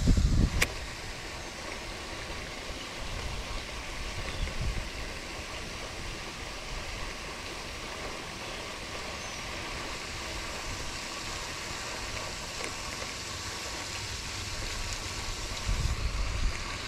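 Steady rushing outdoor wind noise, with gusts buffeting the microphone at the start and again near the end, and a single sharp click about half a second in.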